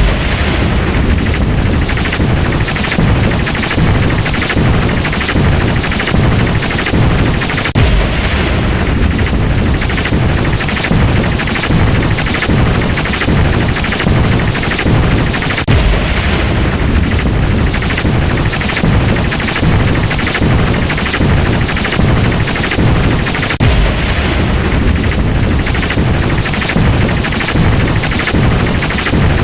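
Lightning-crack and thunder sound effects fired in rapid succession, several cracks a second overlapping into a continuous, loud barrage. The run restarts about every eight seconds.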